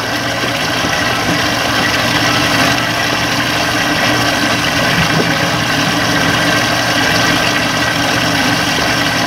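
Boat motor running steadily with an even hum, the boat moving slowly over calm water.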